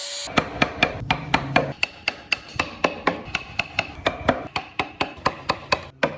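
A mallet striking a carving chisel into wood, in quick, fairly even blows at about four a second, each with a short metallic ring.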